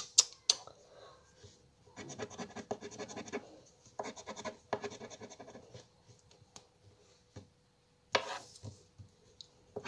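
A plastic scratcher scraping the coating off a lottery scratch card, in bursts of rapid back-and-forth strokes with short pauses between them. There are two sharp clicks at the start.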